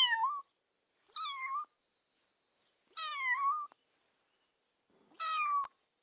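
Domestic kitten meowing: four short, high meows about one and a half to two seconds apart, each with a slightly falling pitch.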